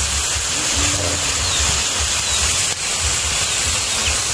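Weaver ant eggs and ants frying in oil in a steel wok: a steady sizzling hiss, with a low rumble underneath.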